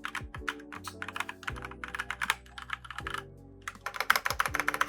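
Fast typing on a Fantech Atom 96 mechanical keyboard with red key switches: rapid keystrokes in flurries, a brief pause about three seconds in, then a louder flurry near the end. Background music with a steady beat plays underneath.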